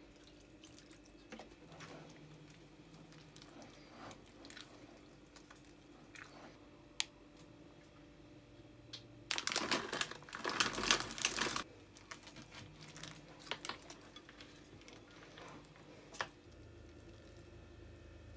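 Light clicks and taps of a wire whisk against a glass mixing bowl of batter, then, about nine seconds in, some two seconds of dense crackling as chocolate chips are poured in from a plastic bag.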